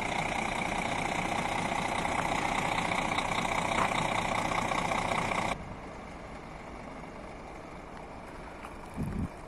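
Scania G 400 truck's diesel engine running steadily as the truck creeps forward. A little past halfway the sound drops suddenly to a quieter hum, with a brief low thump near the end.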